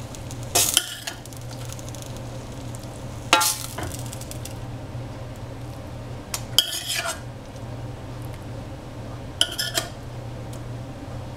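A cooking utensil scraping and clinking against the pan and a ceramic plate four times, about every three seconds, as stir-fried egg and oyster mushrooms are served. Each clink rings briefly over a steady low hum.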